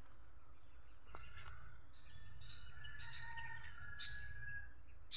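Birds chirping and calling, with short high notes and a few longer whistled notes starting about a second in, over a steady low background rumble.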